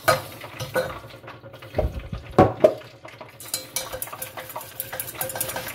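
Coil-spring whisk stirring hot sauce and melted butter in a stainless steel pot, its wires scraping and clinking against the pot. There are a few louder knocks about two seconds in, and quick rattling clicks in the second half.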